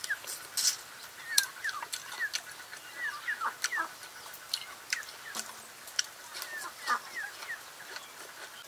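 A person eating grilled duck, chewing and lip-smacking. Many short wet clicks come in quick, irregular succession, mixed with brief falling squeaks.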